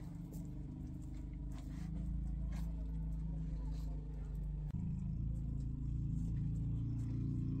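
Dough being kneaded by hand in a metal bowl: soft squelches and pats about once a second, over a steady low rumble that is the loudest sound.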